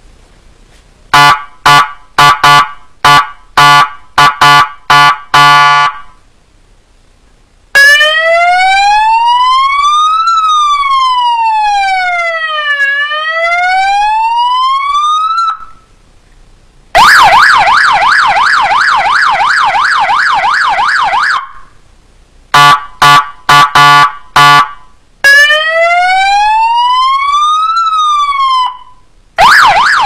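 Compact three-tone electronic warning siren for a motorcycle or car, cycling through its sounds: a string of short horn-like blasts, a slow police-style wail rising and falling in pitch, and a fast yelp. Then it plays the blasts, the wail and the yelp again, with short pauses between the tones.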